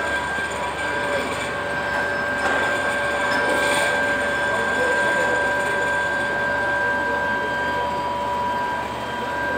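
Foundry machinery whining steadily, several high held tones over a rumbling noise, around a ladle of molten steel during mild steel casting.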